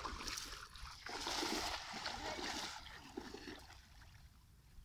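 Water splashing and sloshing in a shallow, muddy pond. It is loudest for a couple of seconds from about a second in, then dies away.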